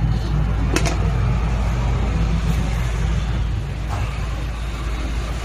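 Steady low rumble of passing road traffic, with a sharp click about a second in.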